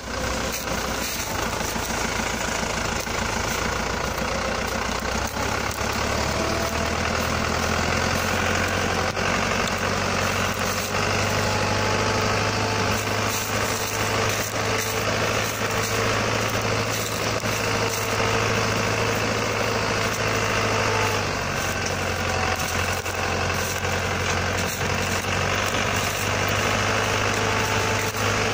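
Small tractor's engine running steadily under load as it pulls a furrow plough through soil, its note shifting a little now and then.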